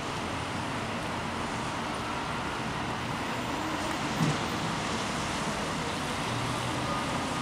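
Steady city street traffic noise: a continuous hum of passing cars and urban background, with a brief louder sound about four seconds in.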